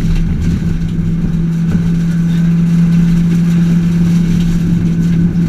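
Peugeot 206 1.6 16v four-cylinder rally engine running at steady, high revs, heard from inside the cabin, over the rumble of tyres on gravel.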